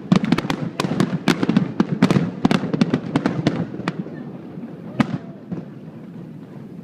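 Aerial fireworks going off in a rapid barrage of sharp bangs, several a second, thinning out after about three and a half seconds, with one last loud bang about five seconds in.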